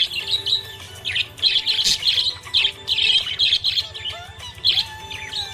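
Budgerigar chirping and warbling: a quick, busy run of short high chirps, some sliding in pitch, with brief gaps between them.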